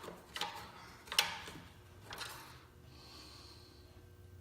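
Three light clicks about a second apart, from a lawn mower's dipstick being handled in its filler tube, then a quiet stretch with a faint steady hum.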